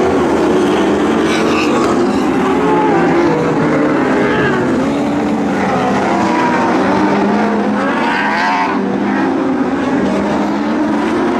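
Several Lightning Sprint cars, small winged dirt-track sprintcars, racing together. Their engines rise and fall in pitch as they accelerate down the straights and lift for the turns.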